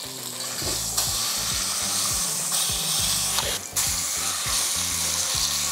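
Pork shoulder searing in hot oil in an enamelled cast-iron pot, sizzling steadily. The sizzle grows louder about a second in and falls away briefly after about three and a half seconds.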